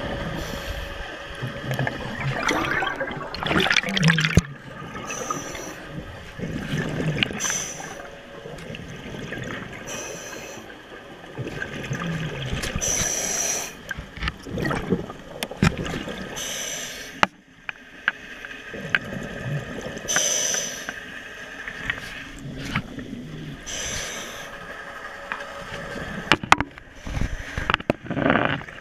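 Sound picked up by a camera under water: irregular bubbling and rushing water noise as it moves about, over a faint steady hum.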